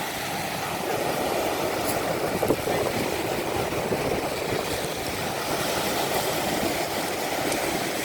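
Rough Black Sea surf breaking and churning, a steady rushing noise with a brief louder crash about two and a half seconds in.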